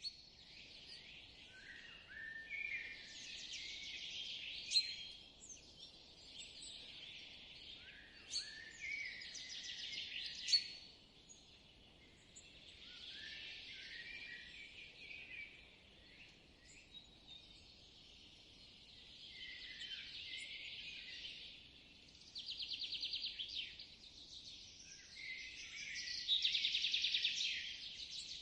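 Songbirds singing in a forest: repeated phrases of chirps and whistles, with fast trills near the end, over a faint steady background hiss.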